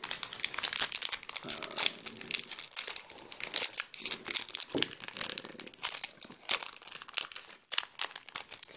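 Foil Yu-Gi-Oh booster pack wrapper crinkling and rustling as it is handled, with trading cards rustling, a dense run of quick crackles.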